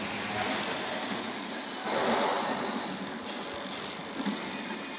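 Snack packing machine running: a steady mechanical clatter, louder for about a second two seconds in, with a sharp click a little after three seconds.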